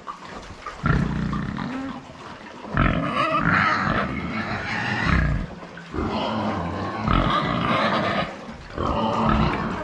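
Pig calling loudly in about four long, rough calls, one after another.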